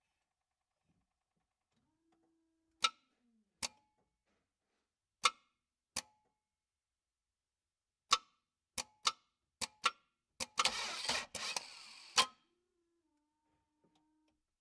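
Car that won't start: sharp clicks as the key is turned, at first in pairs and then in a quicker run, then a short burst of starter cranking of about two seconds that ends in a click without the engine catching.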